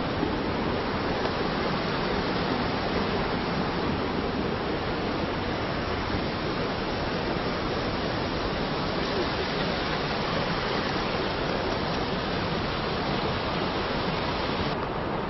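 Steady rushing of a mountain river's flowing water, an even noise with no breaks; the higher part of the sound drops away abruptly near the end.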